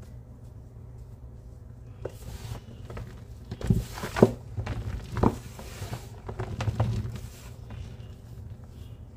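Hands crumbling and rubbing clumps of homemade powder against the bottom of a kitchen sink: a gritty rustle for several seconds, with a few heavier knocks around four and five seconds in, over a steady low hum.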